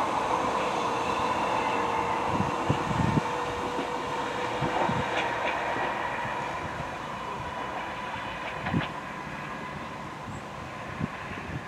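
Merseyrail Class 507/508 third-rail electric multiple unit pulling away and fading into the distance, its motors whining steadily over a scatter of short knocks from the wheels on the track.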